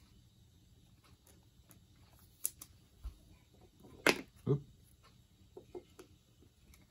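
Trading cards being handled: faint scattered clicks and taps as cards are shuffled and set down on the table, with one sharper click about four seconds in.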